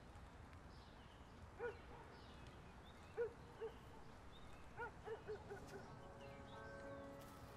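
Faint outdoor ambience with scattered short animal calls: brief low yelps, several in quick succession about five seconds in, and faint high bird chirps. A soft sustained music chord comes in about six seconds in.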